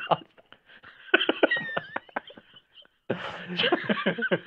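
Two men laughing in two bursts of quick, pulsing laughs, the second starting about three seconds in.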